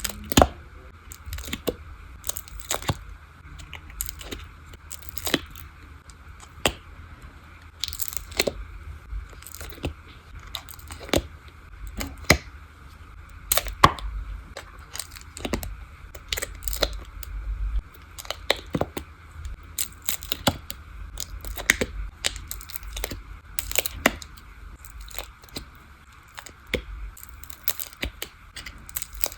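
Something being peeled apart by hand, crackling and snapping in irregular bursts of tearing, over a faint steady hiss.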